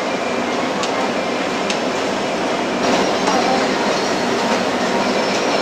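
Steady din of a crowded restaurant: many diners' voices blurred into a constant hubbub, with a few sharp clicks and clinks of dishes and utensils.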